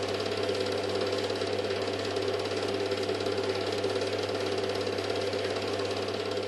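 Film projector running: a steady, even mechanical clatter over a low hum.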